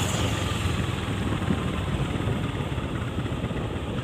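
Motorcycle engine running steadily at riding speed, heard from the moving bike, with a low pulsing rumble and a constant rush of road noise.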